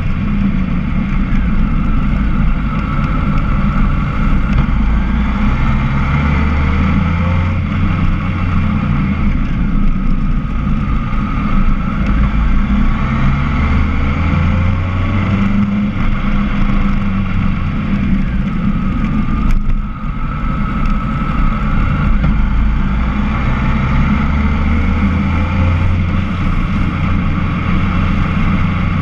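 Motorcycle riding downhill at road speed, the engine note rising and falling with the throttle through the bends, over a heavy low rumble of wind on the microphone.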